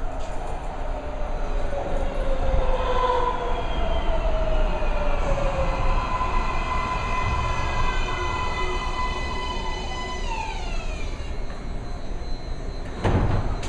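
MARTA rapid-transit train pulling into an underground station and braking to a stop. Over a low rumble from the wheels, its drive gives off several whining tones that slide down in pitch and die out about ten seconds in as the train halts. A sudden loud burst of noise comes near the end.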